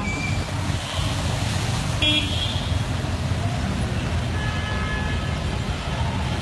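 Steady low rumble of road traffic, with a short horn toot about two seconds in and fainter tones near the end.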